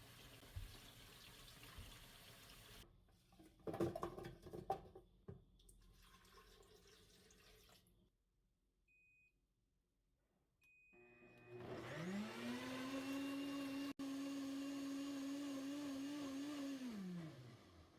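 Electric blender motor spinning up, running at a steady pitch for about five seconds, then winding down and stopping. Two short electronic beeps come just before it starts, and some clanking and running water are heard earlier.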